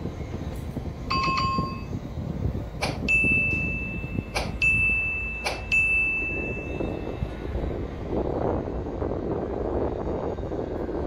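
Inside a city bus: steady engine and road rumble, with a short electronic chime about a second in, then a steady high-pitched beep broken by three sharp clicks from about three to seven seconds in. The engine rumble grows louder in the last few seconds.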